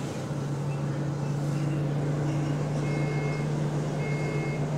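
Diesel bus engine running with a steady low drone, heard from inside the bus. From about three seconds in, a high electronic beep sounds in short pulses about once a second.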